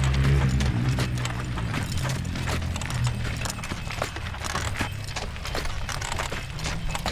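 Hooves of two draft horses walking round a horse-driven oil mill, with irregular sharp knocks and clicks. A low drone fades out about halfway through.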